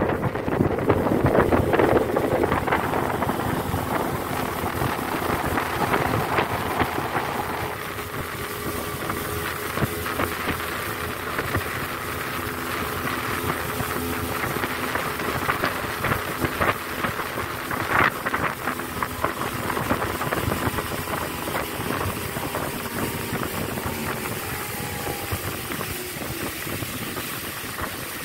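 75-horsepower outboard motor driving a fibreglass speedboat at a steady speed, with wind buffeting the microphone. It gets a little quieter about eight seconds in, and there is a single sharp knock about two-thirds of the way through.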